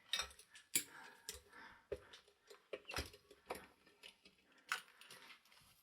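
Light, irregular clicks and taps of a pin-tumbler deadbolt and its picking tools being handled.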